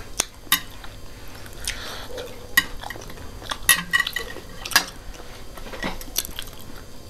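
Metal forks clinking and scraping against ceramic plates of instant noodles, a scattering of sharp clinks, some ringing briefly, between quieter eating noises.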